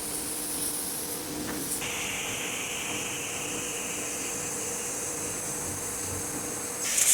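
Electric pressure washer running: a steady hiss of the high-pressure water spray over a faint motor hum. The hiss changes tone about two seconds in and grows louder at the very end.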